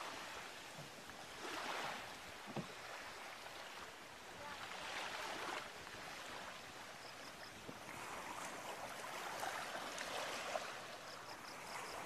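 Faint surf: waves washing onto a beach, the hiss rising and falling in slow swells every few seconds.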